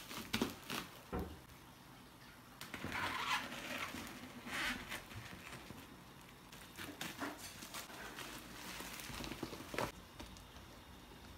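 Bubble-wrap packaging crinkling and rustling as it is handled and cut open with scissors, in short bursts, with a few light taps against the box.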